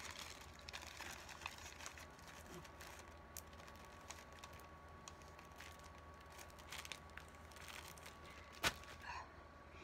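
Quiet room with faint scattered clicks and rustles of handling, and one sharper click near the end, over a faint steady hum.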